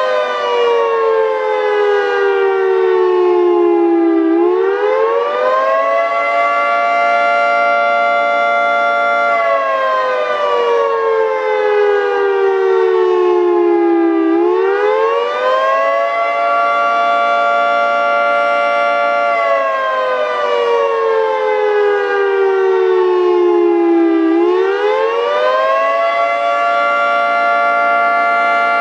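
Federal Signal 3T22 outdoor warning siren sounding the attack signal, a wail. Its pitch rises over about two seconds, holds high for about three, then falls slowly for about five, repeating in cycles of roughly ten seconds.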